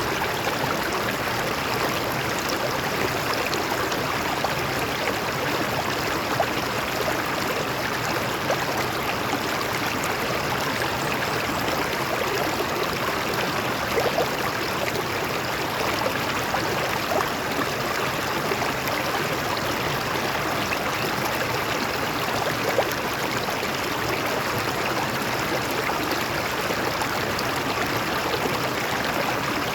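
Water flowing over rocks in a stream, a steady rushing noise with small splashes now and then.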